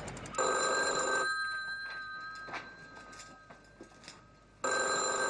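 Landline telephone ringing, two rings about four seconds apart, with a few faint knocks in the gap between them.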